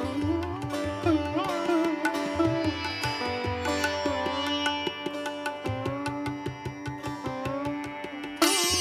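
Background music of Indian classical style: a sitar melody with bending notes over a steady drone, with a tabla-like beat.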